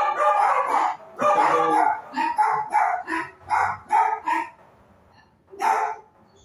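A dog barking and crying in a rapid run of short, pitched calls, about three a second, after two longer cries. The calls stop about four and a half seconds in, with one more near the end.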